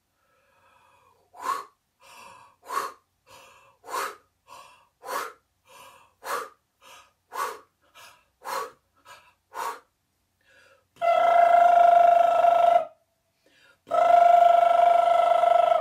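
A woman making wordless vocal sound effects: a run of short breathy gasps, about two a second with loud and soft ones alternating, then two long steady held tones of about two seconds each.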